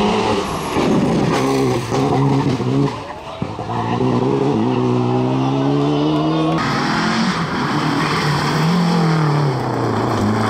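Alpine A110 rally car's engine at full throttle, pitch climbing through the gears with a short dip about three seconds in. About six and a half seconds in the sound switches to a Lancia Delta Integrale rally car's engine, its revs rising and falling as it is driven hard on gravel.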